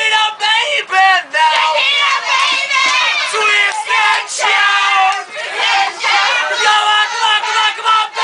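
A group of voices singing and shouting loudly together, a rowdy drunken sing-along.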